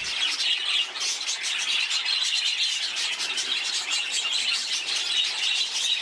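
A colony of budgerigars chirping and chattering all at once, a continuous dense high twittering.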